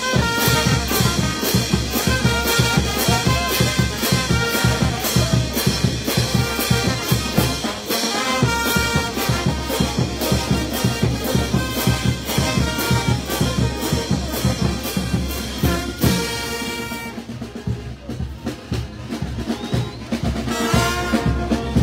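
Peruvian street brass band playing a lively tune on trumpets, trombones and sousaphones over a steady drum beat. About three-quarters of the way through the horns stop and only the drums carry on for a few seconds before the brass comes back in near the end.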